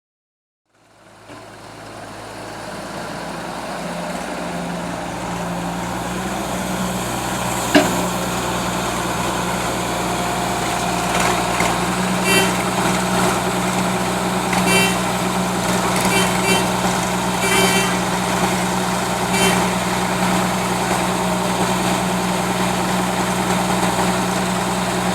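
Excavator's diesel engine running steadily, fading in after a second of silence. One sharp knock comes about eight seconds in, and several short knocks follow in the second half.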